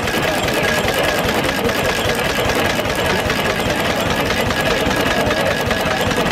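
1923 International Harvester Model M 1-1/2 HP single-cylinder, throttle-governed stationary gas engine running steadily under load, with a fast, even beat as it drives an ice cream freezer through a gearbox. A thin steady whine runs over the beat.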